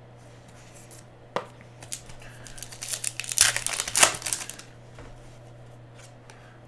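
A single tap, then a plastic-foil trading card pack (2017 Panini Elite Extra Edition) torn open and crinkled by hand for about two seconds, loudest near the middle.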